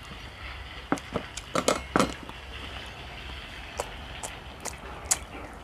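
Irregular light clicks and knocks of eating utensils against dishes at a meal, about nine in all, clustered around the second second and scattered after, over a low steady hum.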